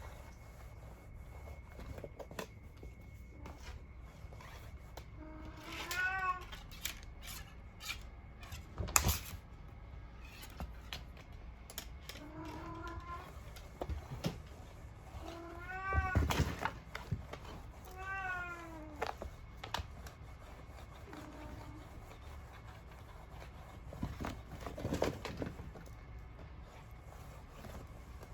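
Domestic cat meowing about five times, spread out, with a few sharp thumps and scuffs in between.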